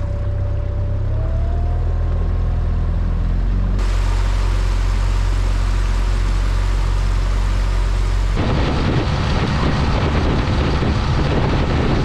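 A small boat's outboard motor running steadily under way, with a faint rising whine in the first two seconds. A loud rush of water and wind joins in about four seconds in, and the sound changes abruptly a little past halfway.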